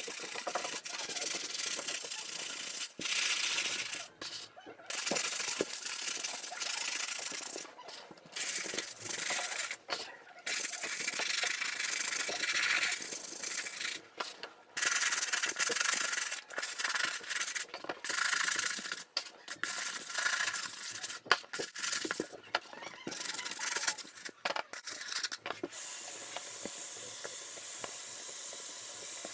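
A stiff brush scrubbing a white sneaker's upper with shoe cleaner, a scratchy rubbing in stretches of strokes with short pauses. Near the end it gives way to a steady hiss of tap water running over the shoe as it is rinsed.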